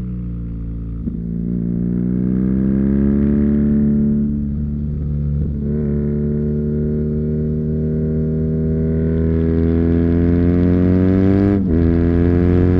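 2019 BMW R NineT's 1170 cc air/oil-cooled boxer twin running through its stock Euro-4 Akrapovic slip-on exhaust, heard from the rider's seat under way. The note sags briefly as the throttle comes off at the start, then climbs steadily under acceleration, with a short break about five and a half seconds in and a sharp break and drop in pitch just before the end, as of an upshift.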